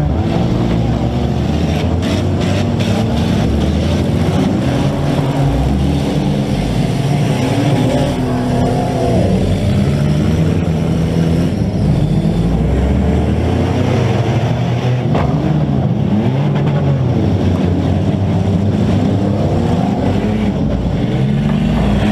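Several demolition-derby compact cars' engines running and revving at once, their pitches rising and falling over one another.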